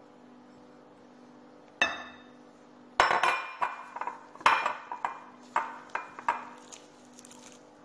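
A silicone spatula knocking and scraping against ceramic bowls while melted butter is emptied into the mixing bowl: one sharp clink about two seconds in, then a run of about eight sharp knocks and clinks, each ringing briefly.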